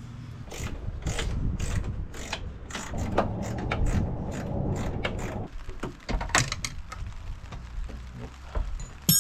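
12 mm socket ratchet clicking in repeated strokes as a door hinge bolt is loosened: steady clicking for about five seconds, then sparser clicks. A sharp metallic clink rings out near the end.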